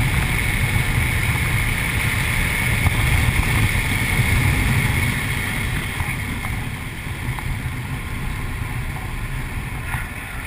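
2008 Audi RS4's V8 engine heard from inside the cabin at track speed, with road and wind noise. The sound is loud and steady at first, then drops off about halfway through as the car eases off.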